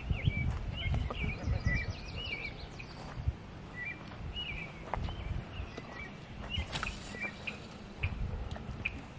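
Small birds chirping: short calls that bend up and down, coming every second or so and thinning out after about three seconds, over a low rumble that is strongest in the first couple of seconds.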